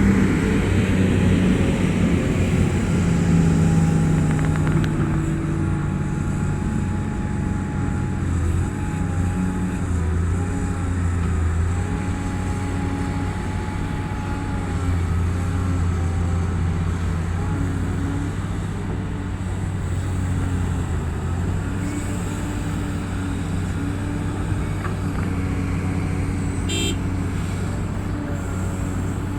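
Heavy diesel engine of a Komatsu PC850 excavator running steadily under load, with a whine that wavers in pitch, louder in the first few seconds. A brief high chirp sounds near the end.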